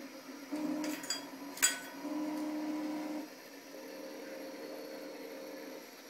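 Electric motors of a homemade aluminium robot arm whining in start-stop runs of about a second as its joints move, with a fainter hum in between. A sharp metallic click about a second and a half in is the loudest sound.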